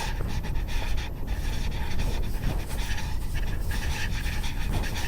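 A person panting hard, close to the microphone, in repeated breaths, over a steady low rumble.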